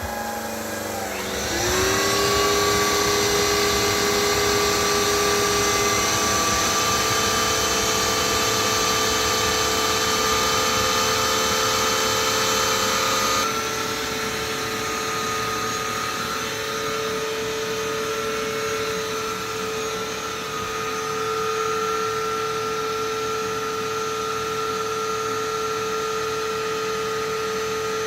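Vacuum cleaner motor spinning up, its whine rising over the first couple of seconds, then running steadily with a high whine over a rushing hiss. About halfway through, the hiss thins and the sound turns duller, then it runs on steadily.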